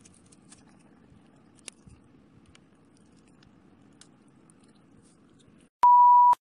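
Faint handling noise with a few small clicks as fingers wrap rubber bands around a soft squishy toy. Near the end comes a loud, steady beep about half a second long: the test tone of a 'technical difficulties' colour-bar card.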